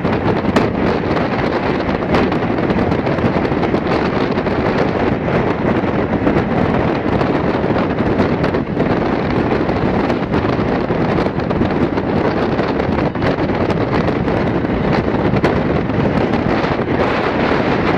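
Steady wind blasting the microphone held outside a moving Amtrak passenger train, mixed with the train's rush and rumble along the track.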